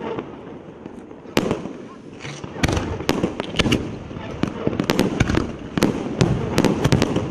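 EC131 'Carnaval Tenerife' consumer firework battery firing: a run of sharp bangs and crackling reports, a few scattered at first and coming thick and fast from about two and a half seconds in.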